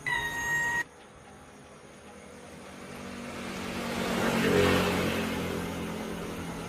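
A short electronic beep, then a vehicle approaches and passes, loudest about four and a half seconds in.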